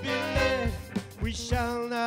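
Live band music from a folk-swing group: upright bass, archtop electric guitar, drums, fiddle and saxophones playing together.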